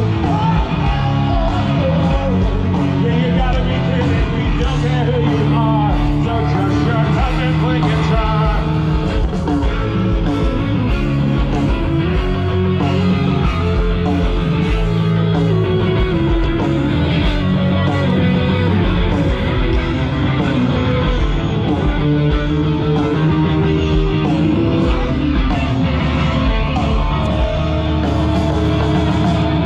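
Live rock band playing loudly through large stage speakers: electric guitar, bass and drums, with singing at times.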